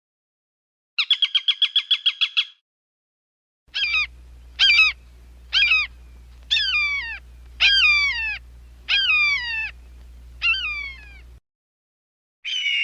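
Falcon calls: a rapid cackling run of about a dozen short notes, then, after a pause, eight calls about a second apart, each falling in pitch, over a low steady hum.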